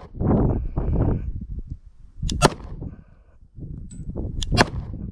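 Three pistol shots from a Glock G20 firing .40 S&W through an Alpha Wolf conversion barrel: one about two seconds in, then two in quick succession near the end. Wind rumbles on the microphone throughout.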